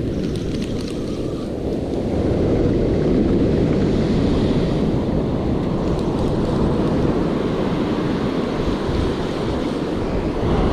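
Surf breaking and washing up the beach, with wind buffeting the microphone; the rushing noise swells about two seconds in and stays up.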